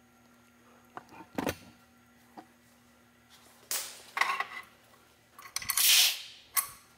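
A knock about a second and a half in, then several short hissing bursts, the loudest about six seconds in.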